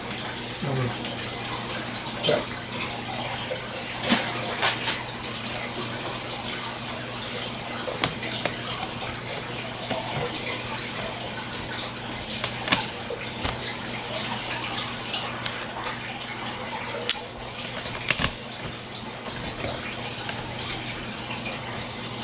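Aquarium filter outflow splashing and churning at the water surface, a steady running-water sound with a constant low hum beneath it. A few short sharp clicks come and go.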